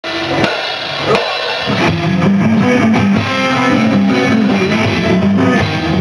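A rock band playing live: electric guitars over a drum kit, with bass guitar notes coming in after about two seconds.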